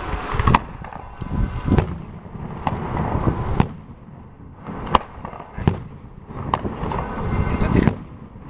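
Fireworks going off: a run of sharp bangs a second or so apart, with echoing booms and crackle between them.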